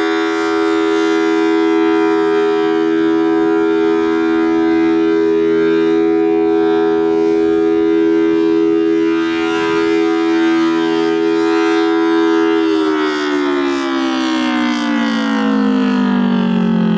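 Federal Signal Thunderbolt 1000T dual-tone warning siren sounding its steady full-alert chord, loud and unchanging. About two-thirds of the way in it is shut off and the chord starts winding down, sliding steadily lower in pitch.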